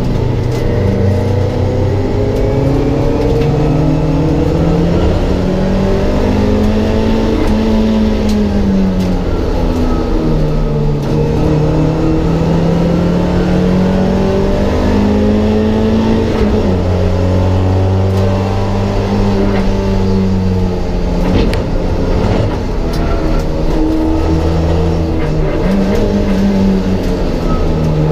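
Mk1 Ford Escort race car engine at racing speed, heard from inside the caged cockpit, its revs repeatedly climbing and dropping through gear changes and corners. There is one sharp click about three-quarters of the way through.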